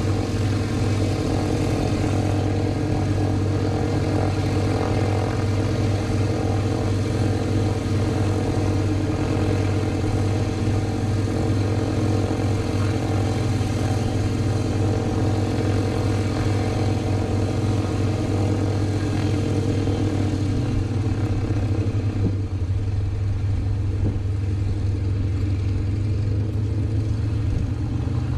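Piston aircraft engine running steadily at low power, a loud even drone; its note drops slightly about two-thirds of the way through.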